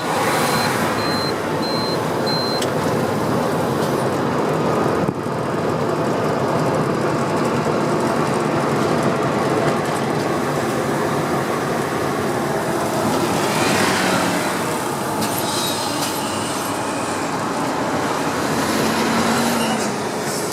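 Mercedes-Benz 1620 truck's six-cylinder turbo diesel engine running steadily on the road, with a brief dip about five seconds in.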